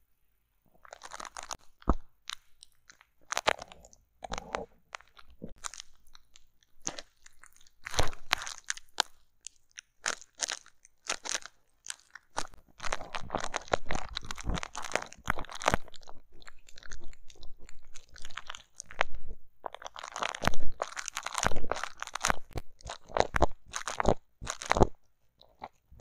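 Close, crisp crunching and crackling from metal tweezers and an extractor tool picking and scraping at small fake-pimple props resting on bubble wrap. The strokes are irregular, sparse at first and coming thick and fast from about halfway through.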